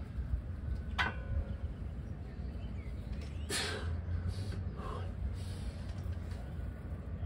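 A man's hard, forceful breathing during a drop set of Romanian deadlifts, with short sharp exhales a few seconds in. One sharp clank sounds about a second in.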